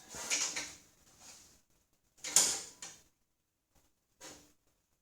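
Three short bursts of clattering and scraping handling noise, the loudest about halfway through, with no saw motor running between them.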